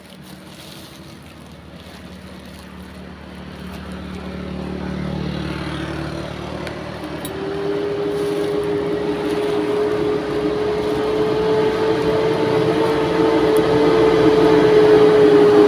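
Road traffic approaching: a truck's engine grows steadily louder as it nears, with a steady engine drone setting in about seven seconds in.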